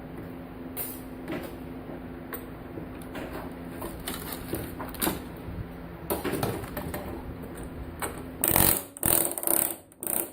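Pneumatic air chisel chipping components off an electronic circuit board: scattered clicks and clatter of parts over a steady hum, then a few loud, short bursts of hammering near the end.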